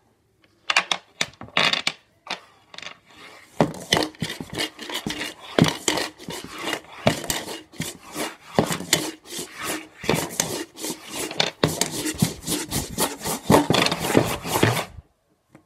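Cup swirled and slid over a tabletop with dice rattling and clicking inside it: the dice-stacking technique of spinning the cup until the dice settle into a tower. The dense scraping and clicking starts about a second in and stops just before the end.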